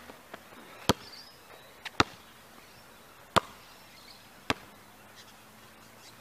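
Basketball being dribbled on an asphalt court: four sharp bounces about a second apart.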